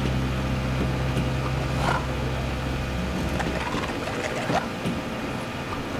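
Cartoon motorboat's outboard engine running with a steady low hum over water splashing; the engine hum drops away about three and a half seconds in, leaving the water sound.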